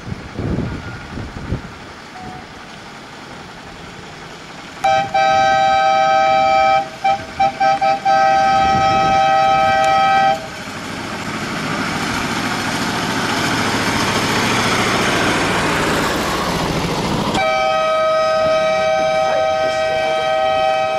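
A loud two-note horn blows for about five seconds, broken by several short toots partway through. A steady rushing hiss then builds for several seconds, and the horn sounds again near the end.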